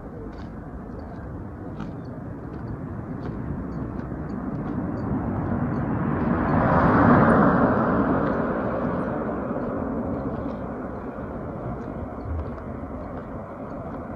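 A road vehicle passes close by: its noise builds over a few seconds, peaks about halfway through and fades away, over steady outdoor street noise.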